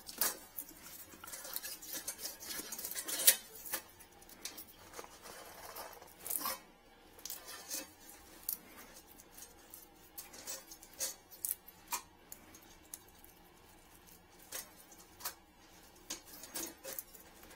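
Handling noise from thin metal retrieval wires and a camera cable being worked into a toilet: scattered small clicks, taps and scrapes, with one sharper knock about three seconds in.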